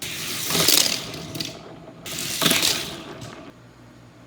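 Die-cast Hot Wheels cars rolling and clattering down plastic stunt track, with two loud rattling runs, about a second in and again about two and a half seconds in, and smaller clicks in between.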